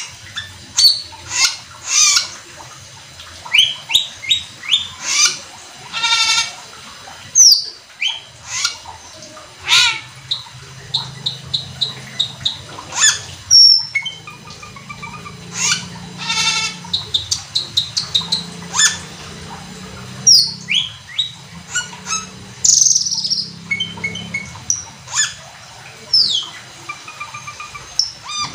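Asian glossy starling (cucak keling) in full, busy song: a fast run of sharp chirps, falling whistles and quick trills with only brief pauses, the vigorous singing that keepers call gacor.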